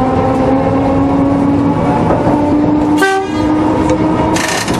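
Tram running along street track, its motors whining at a pitch that climbs as it gathers speed. A sharp clack comes about three seconds in, and a short high hiss near the end.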